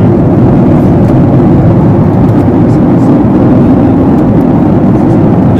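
Cabin noise inside a jet airliner in flight: the steady, low-pitched rush of the engines and the airflow past the fuselage.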